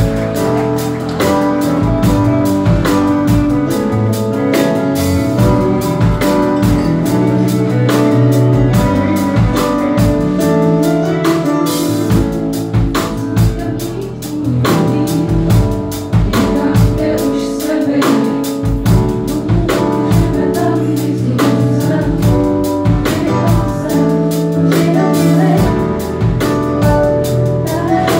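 Live band playing a song with singing, backed by a drum kit, keyboard and electric guitar, with a steady beat throughout.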